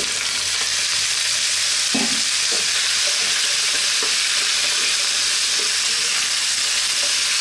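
Cubed sweet potato and sliced onions sizzling in oil in a non-stick frying pan, a steady hiss, while a wooden spatula stirs them with a few soft scrapes against the pan.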